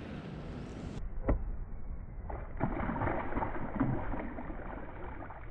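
Water sloshing around a fishing kayak over a low steady rumble, with a single sharp knock about a second in.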